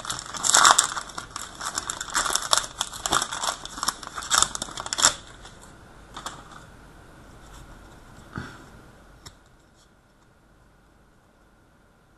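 Foil hockey card pack wrapper being torn open and crinkled by hand, a dense crackling for about five seconds, followed by a few soft clicks of cards being handled.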